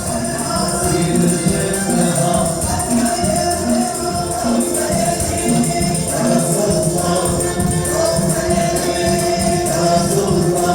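Traditional Moroccan wedding music: a group of voices singing together over tambourines and hand drums, loud and steady.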